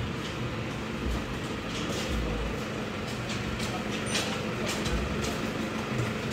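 Steady background hum of vehicles and machinery, with a few light footsteps on brick paving.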